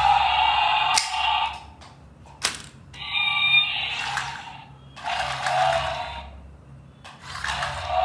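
Remote-control frilled-lizard toy's electric motor and gears whirring in bouts of about a second as it walks, with quieter gaps between them and one sharp click about two and a half seconds in.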